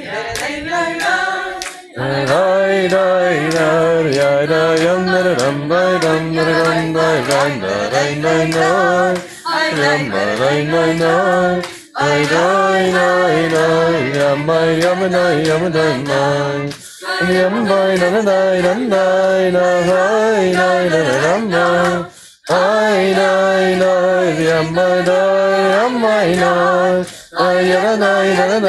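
A group of voices singing a freylekhs melody together without accompaniment, phrase after phrase with brief breaks for breath, over a steady low sung part.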